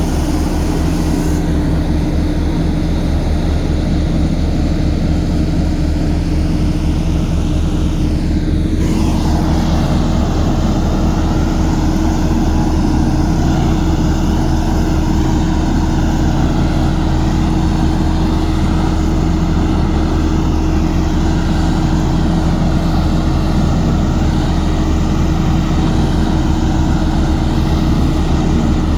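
Heavy construction machine's engine running steadily under load, with a low, even drone. A falling whine sweeps down about eight seconds in.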